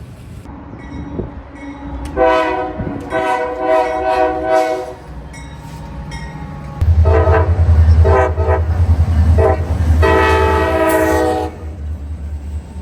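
A train's multi-tone air horn sounding a horn show: a short blast and a long one, then after a pause three short blasts and a long one. From about seven seconds in, the train's heavy rumble is loud underneath.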